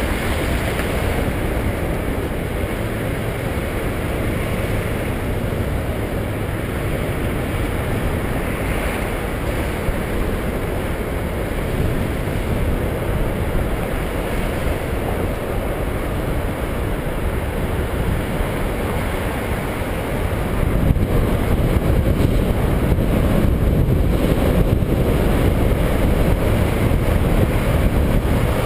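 Wind rushing over the microphone while riding a bicycle, a steady noise that gets louder about 21 seconds in.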